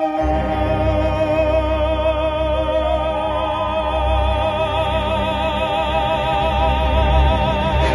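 Music: the close of an Italian ballad, with a long held note sung in an operatic style with a wavering vibrato over a deep bass backing. It stops abruptly near the end.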